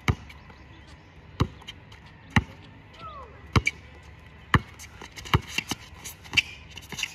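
A basketball dribbled on hard court pavement, bouncing about once a second with sharp slaps, then a run of quicker, lighter hits near the end.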